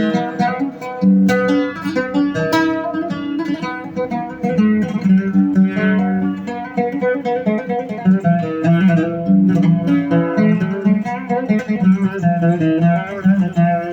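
Oud played solo in an oriental (Arabic-style) melody, a steady stream of quick plucked notes.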